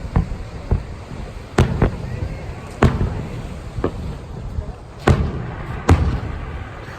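Aerial fireworks exploding in a string of sharp bangs about a second apart, the two loudest near the end.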